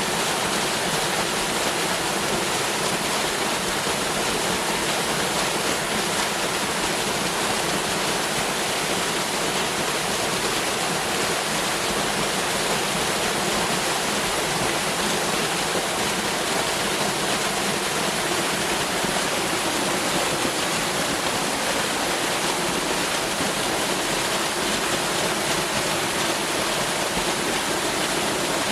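Waterfall crashing steadily: a constant, even rush of falling water.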